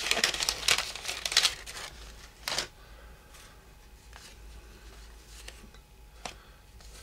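Waxed-paper wrapper of a baseball card pack crinkling and tearing as the cards are pulled out of it, ending with one short sharp crackle about two and a half seconds in. Then quieter handling of the card stack, with a few light clicks.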